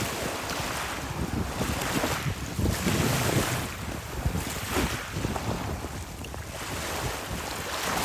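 Small sea waves washing in over a pebble shore every few seconds, with wind buffeting the microphone.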